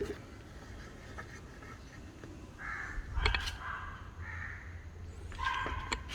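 A crow cawing in the background, about three harsh calls in the second half.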